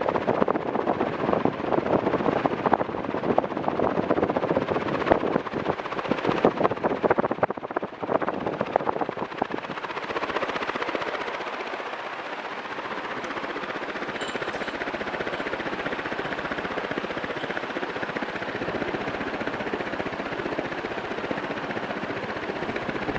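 Panasonic F-560A1 56-inch industrial ceiling fan running. For about the first ten seconds a dense, rapid crackling rattle is heard over it, then it settles into a steady rush of air.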